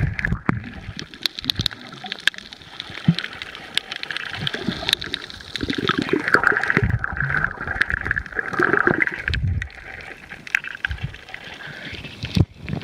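Muffled underwater water noise heard through a camera held below the surface: uneven gurgling and rumbling with many scattered clicks. Near the end it breaks the surface with a splash.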